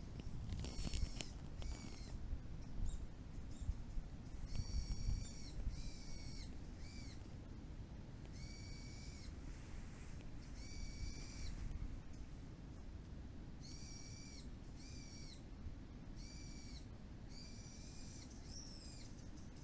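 A bird calling over and over: short notes in quick runs of two or three, with brief pauses between runs. A steady low rumble lies underneath, and a few clicks sound about a second in.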